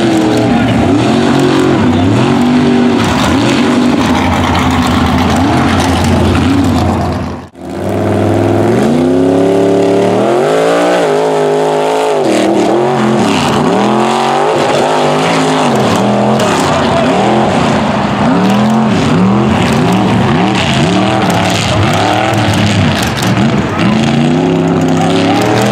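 Mud racing truck engines revving hard through a mud pit, the pitch rising and falling again and again with throttle and wheel spin. A brief gap about seven and a half seconds in, after which a second truck's engine is heard working the same way.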